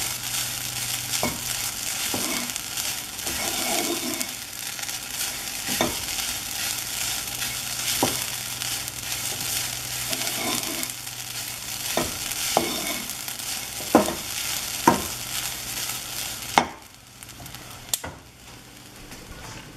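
Grated coconut dry-roasting in a nonstick pan, sizzling steadily as a wooden spoon scrapes and stirs it, with occasional knocks of the spoon against the pan. The coconut is being roasted until its moisture is gone and it turns crumbly. The sizzle cuts off suddenly near the end, and a couple more knocks follow.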